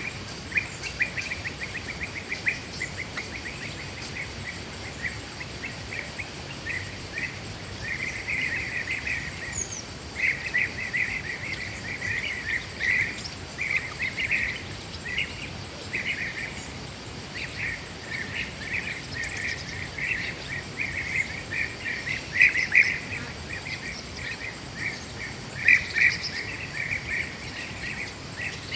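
Forest ambience: runs of rapid, shrill chirping calls start and stop irregularly, over a faint, steady high insect drone.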